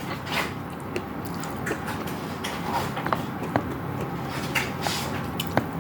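A person eating, close to the microphone: chewing and mouth smacks with scattered sharp little clicks, over a steady low background noise.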